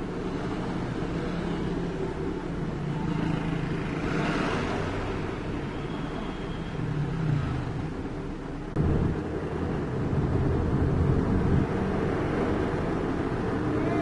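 Engine and road noise heard from inside the cab of a slowly moving vehicle in traffic. The engine hum changes pitch, and it steps up in loudness about nine seconds in.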